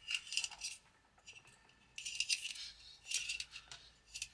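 A USB cable being pulled through and wrapped around a 3D-printed PLA lamp base, handled in the hands. It makes short spells of scraping and rustling, several times, with brief pauses between.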